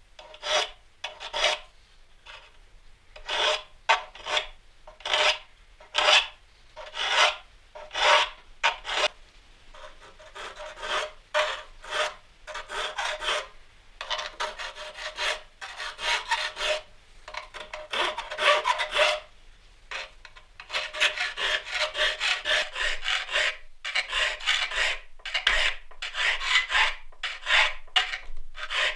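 Triangular saw file rasping across the teeth of a saw blade clamped in a wooden saw vise: sharpening the saw. It starts as separate strokes about a second apart, then comes in quicker runs of strokes about halfway through and again near the end.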